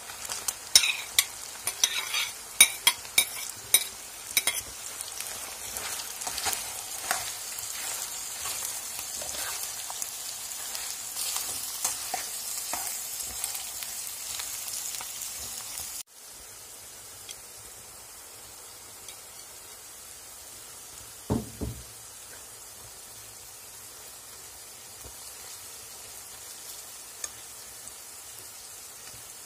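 Chicken and sliced onion frying in oil in a pan, sizzling as they are stirred, with a run of sharp knocks in the first few seconds. About halfway the sizzle drops suddenly and goes on more quietly, with one dull thump.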